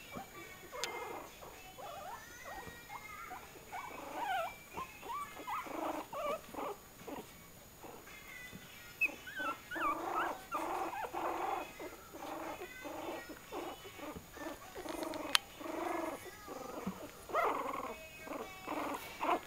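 Two-week-old pug puppies making many short cooing and whimpering calls, a few a second, each bending up and down in pitch.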